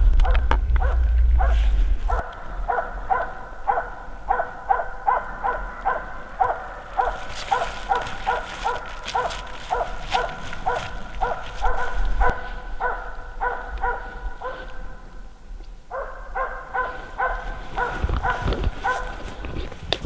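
Dog barking in a rapid, steady run of about three barks a second, marking the tree where a capercaillie sits. The barking breaks off briefly about fifteen seconds in, then starts again. A low rumble on the microphone sits under the first two seconds.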